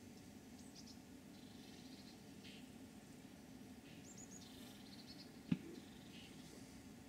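Faint open-air quiet: a few small birds chirping thinly and high, twice in short runs, over a low steady hum. One sharp click about five and a half seconds in.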